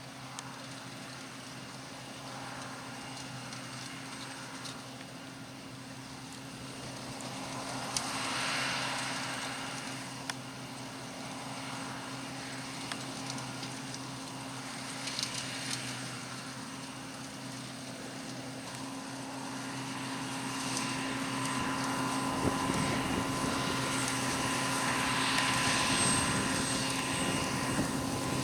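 Diesel engine of harvest machinery running steadily with a constant low hum, with a few swells of rushing noise, growing louder over the second half.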